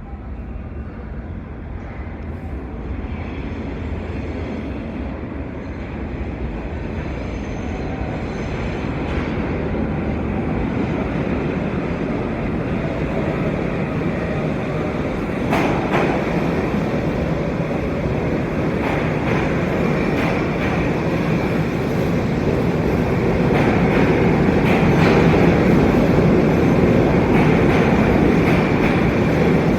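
R68A subway train approaching and pulling into an underground station, its rumble growing steadily louder, with sharp clanks of wheels over rail joints from about halfway through.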